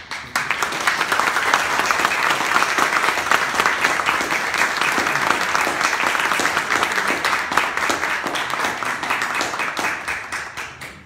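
Audience applauding, many hands clapping at once. It breaks out suddenly and dies away near the end.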